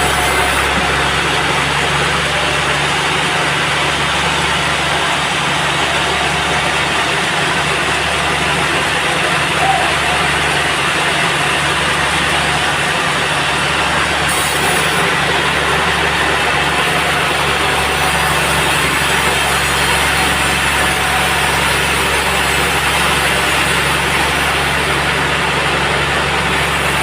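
Sawmill machinery running steadily: a constant engine hum under dense, even mechanical noise, with no pauses or changes.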